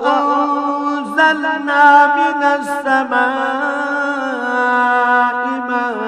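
A man's solo Qur'anic recitation (tilawah) in Arabic, chanted melodically with long held notes and ornamented turns.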